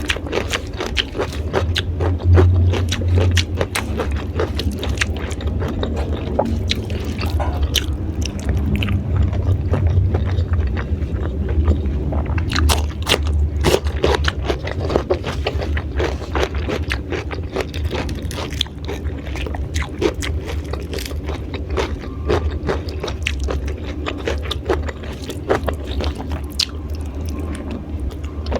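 Close-up crunching and chewing of raw vegetables (lalapan), with many irregular crisp bites and mouth sounds, over a steady low hum.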